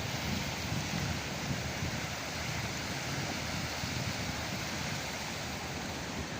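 Sea surf breaking and washing ashore in a steady, unbroken rush, with wind buffeting the microphone in low gusts.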